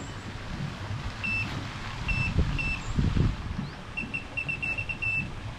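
Wind buffeting the microphone as a steady low rumble. Over it come short high beeps all on one pitch: three single beeps, then a quick run of about eight near the end.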